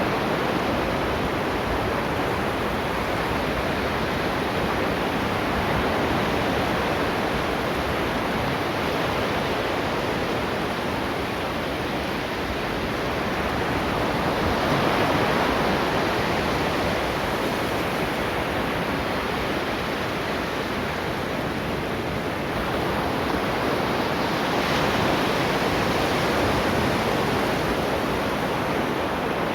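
Ocean waves washing onto the shore in a steady surf, swelling a little about every ten seconds as each wave comes in.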